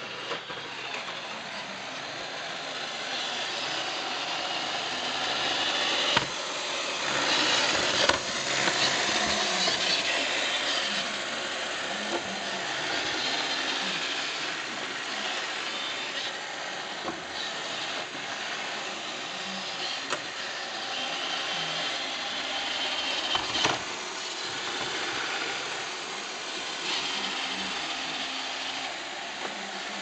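iRobot Roomba 630 robot vacuum running on carpet: a steady noise of its brushes and suction motor, growing louder over the first few seconds. A few sharp knocks come as its bumper meets furniture.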